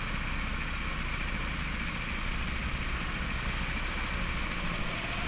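Go-kart engines running steadily, heard from on board one of the karts.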